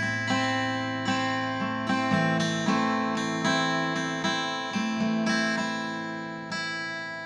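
Instrumental song outro on acoustic guitar: picked notes ringing out one after another, roughly every three-quarters of a second, over a held low note, the whole gradually fading out.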